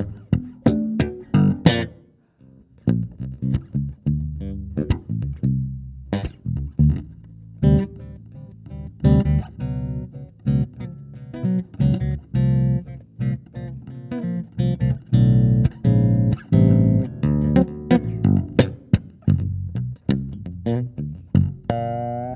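Solo electric bass guitar played through a Hartke HL bass speaker cabinet: a fast run of plucked notes with sharp, percussive attacks, with a short pause about two seconds in.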